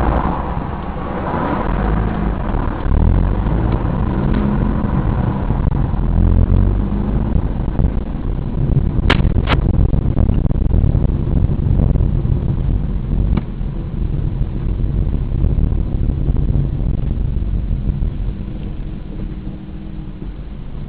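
Steady low rumble of a car's engine and road noise heard inside the moving car's cabin. About nine seconds in come two sharp clicks half a second apart, and a fainter one a few seconds later.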